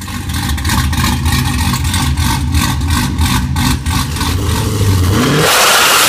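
Supercharged V8 exhaust of a Cadillac CTS-V coupe idling with a rapid, uneven pulse, then revved up sharply about five seconds in.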